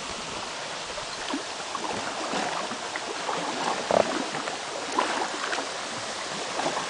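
Paddles splashing and dripping in the water as a small rowboat is paddled, a few irregular strokes over a steady rush of water.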